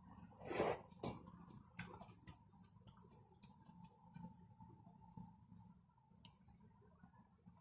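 Utensils clicking lightly against a bowl during eating: about eight faint, irregular taps spread over several seconds, with a brief louder, noisier sound about half a second in.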